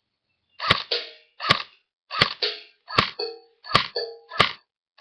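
Airsoft rifle firing six single shots at an even pace, about three quarters of a second apart. Each shot is followed a split second later by the short metallic ding of a steel gong target being hit.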